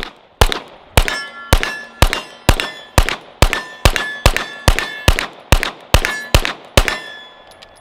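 Canik TP9SFL 9mm pistol fired in a rapid string of about sixteen shots, roughly two a second, with most shots followed by a clear metallic ring as rounds strike steel targets.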